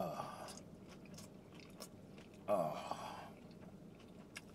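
Close, small-room chewing of a shrimp taco, with scattered wet mouth clicks. There are two short mumbled vocal sounds, the louder one about two and a half seconds in.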